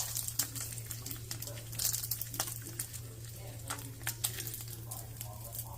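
Paper towel crinkling and rustling, with scattered light clicks of kitchen utensils, over a steady low hum.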